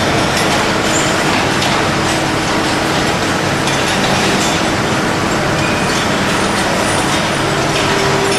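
Steady machinery din of a cathode ray tube production line, a constant mechanical noise with a faint steady hum and scattered light clicks.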